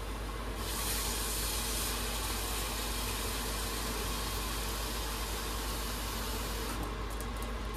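Water hitting a hot frying pan, hissing steadily as it turns to steam. The hiss swells about a second in and breaks up near the end.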